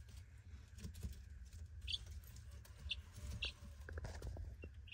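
Young chicks peeping faintly, a few short high peeps from about two seconds in, with light clicks and rustles in the shredded-paper bedding.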